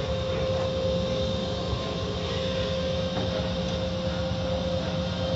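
Automatic tunnel car wash running, heard from inside a car: a steady machine drone with a constant tone, under the rush of water spray and cloth wash strips working over the car.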